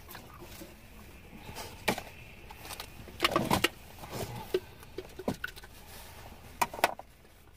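Scattered small clicks and knocks from handling food and drink: a fork in a plastic food container and an aluminium drink can being picked up and lifted to drink. There is a denser cluster of knocks about three seconds in, and two sharp clicks near the end.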